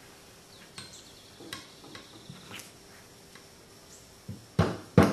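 Faint metal clicks as a steel punch is set against the breech of an 1873 Springfield trapdoor rifle. Near the end come three mallet taps on the punch, the last two sharp and loud, starting to drift out the breech-block hinge pin.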